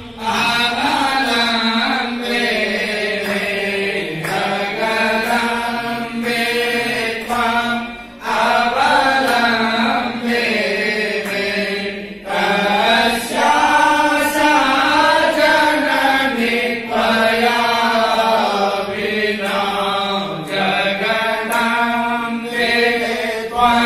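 Hindu puja mantras chanted in long, held, sung phrases. The pitch bends slowly, and a short break for breath comes every few seconds.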